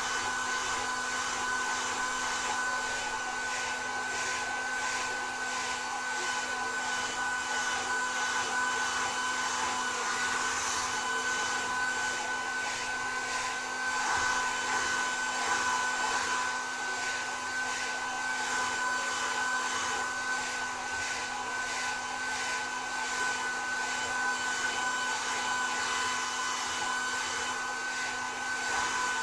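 Handheld hair dryer running steadily: a rush of air under a steady high whine.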